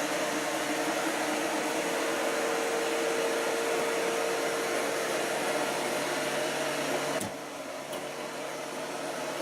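JISIWEI i3 robot vacuum cleaner running, a steady whir with a held hum. About seven seconds in there is a click and it runs a little quieter after that.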